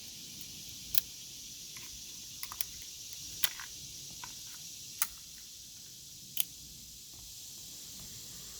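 Scattered sharp clicks of a Kel-Tec CP33 .22 pistol being handled to clear a round it failed to cycle, about half a dozen at irregular spacing, over a steady high hiss of insects.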